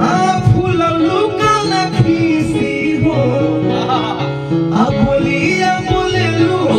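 A man singing a Bhojpuri song live into a studio microphone, an ornamented melody that bends and wavers, over keyboard accompaniment.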